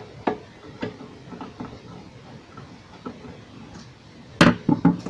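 Light clicks and scrapes of a screwdriver working a screw out of a UPS's casing, then a quick cluster of louder knocks about four and a half seconds in as the unit and tools are handled on the bench.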